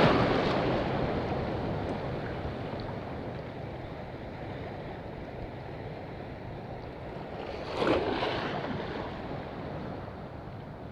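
Waves breaking and washing in the shallows: a surge at the start that fades over a couple of seconds, a steady rush of surf, and a second wave washing in about eight seconds in.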